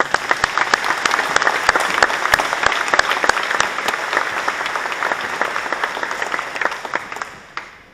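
Audience applauding loudly, with individual hand claps standing out close by; the applause breaks out at once and dies away near the end.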